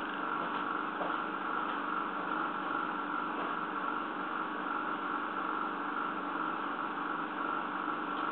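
Steady mechanical hum with a constant whine and hiss, unchanging throughout.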